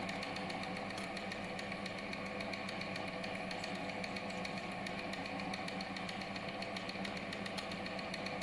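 Small machine tool running steadily while machining connecting rods, a constant hum with a fast, even ticking over it.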